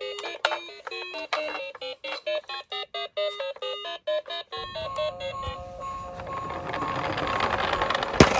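A plinking, music-box-like tune of short notes. Then, about halfway through, toy minicars rolling down a plastic slope with a rising rattle, under a repeating electronic tone pattern, and a few sharp clacks near the end as they hit the bottom.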